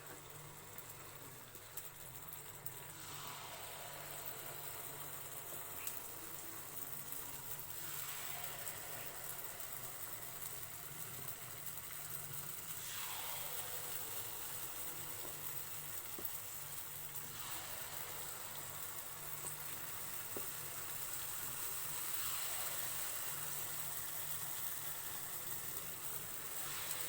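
Banana paniyaram batter sizzling in hot oil in the cups of a kuzhi paniyaram pan as it is poured in, a steady hiss that swells every four to five seconds.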